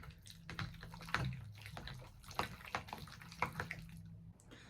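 Cool Whip being stirred into set Jello in a container: irregular wet clicks and scrapes of the utensil, with the partly frozen Cool Whip resisting being mixed in.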